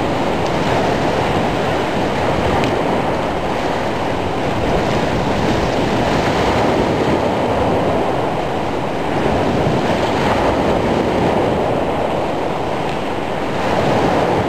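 Heavy surf on a storm-whipped sea: waves breaking and washing in a steady, dense rush, with wind, swelling a little now and then.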